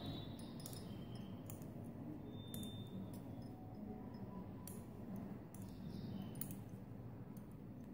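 Faint light clicks and ticks of knitting needles knocking together as stitches are worked, scattered irregularly over low steady background noise.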